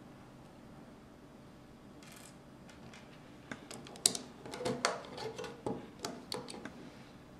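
Plastic Lego bricks clicking and knocking as pieces are handled and pressed onto a model. A run of sharp clicks starts about halfway through, loudest near the start of the run.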